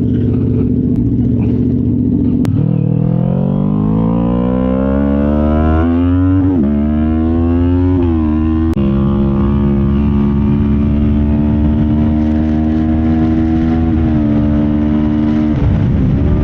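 A vehicle engine running steadily, then speeding up with its pitch climbing for several seconds. It drops twice at gear changes, then holds a steady pitch at cruising speed.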